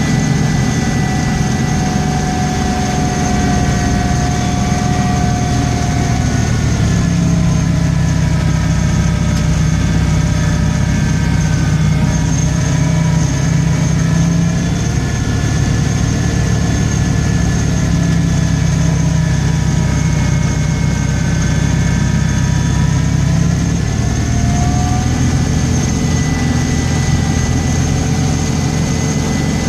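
An engine running steadily at an even low pitch, with a fainter whine above it that drifts slowly up and down in pitch.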